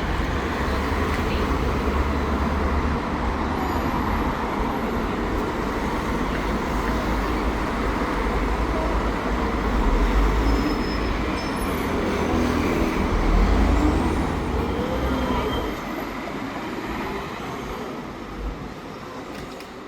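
Motor traffic: a steady low rumble with road noise, swelling about halfway through and again a little later, then easing off near the end.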